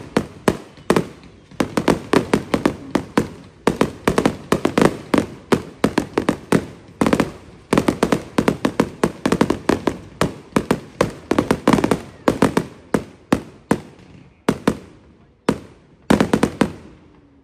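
Fireworks going off in a rapid run of sharp bangs, several a second, thinning out near the end and stopping just before it finishes.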